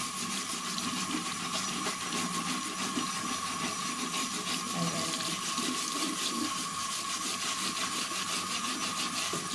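Bathroom tap running steadily, water splashing over a black knit sneaker and into the sink basin, with a brush scrubbing the wet shoe.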